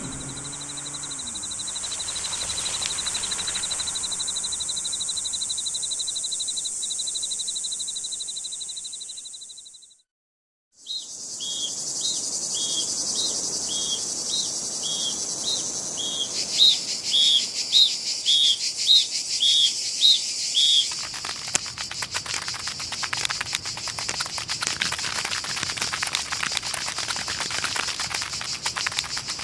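Outdoor nature ambience: a steady, fast-pulsing insect trill over a high hiss that fades out about a third of the way in. After a brief silence come repeated short chirps, nearly two a second. Near the middle these give way to a dense crackling patter.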